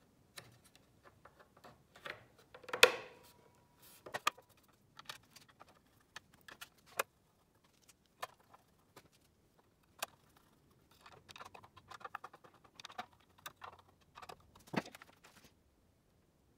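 Scattered clicks, knocks and clinks of metal parts and hand tools being handled while assembling a benchtop belt and disc sander. A louder metallic clack comes about three seconds in, with a short ring after it.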